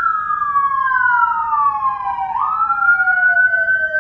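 Whelen Carbide electronic siren sounding a dual-tone wail: two wail tones sweep slowly up and down out of step with each other, one falling while the other holds high. A little over two seconds in, the lower tone turns and starts rising again as the other falls.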